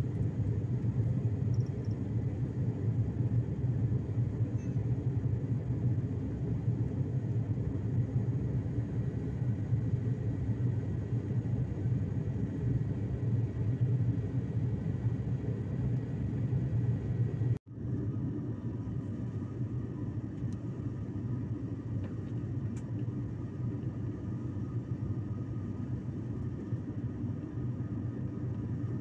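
Steady low drone of engine and air noise inside an airliner cabin in flight. It breaks off for an instant about two-thirds of the way through, then carries on slightly quieter.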